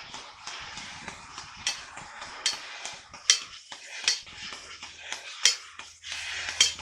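Hammer striking metal in a steady rhythm, about seven sharp, ringing blows less than a second apart, over a steady background hiss.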